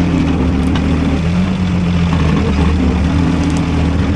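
Off-road trial truck's engine running under load as it crawls over rocky ground, its revs rising and falling.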